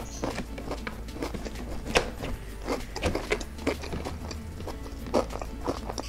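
Close-miked mukbang eating sounds: chewing and mouth clicks, with irregular taps and rustles as donuts are moved around in a cardboard donut box, the sharpest tap about two seconds in.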